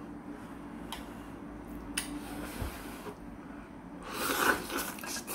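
Close-up eating sounds of a sheet of fish cake (eomuk) being bitten from chopsticks: a couple of faint clicks, then a short burst of mouth noise about four seconds in.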